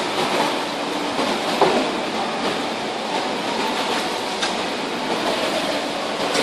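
Kayak paddles splashing and churning the water in an indoor pool hall, a steady wash of water noise with a couple of sharp knocks.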